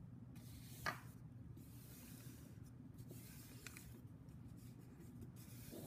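Hands rubbing and smoothing a glued paper printout flat onto a sheet of paper: a few faint papery swishes, with a brief tap about a second in.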